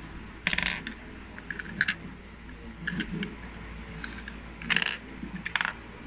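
Hard plastic clicking and rattling from a hand-built Lego candy machine being worked by hand, with a coin pushed through and a gumball dispensed. It comes as five short clatters, the loudest about half a second in and just before five seconds in.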